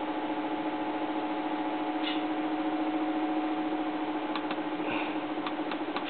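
Aoyue hot air rework station's blower running with a steady hum, with a few faint clicks about four to five seconds in as it is turned up toward 350 degrees.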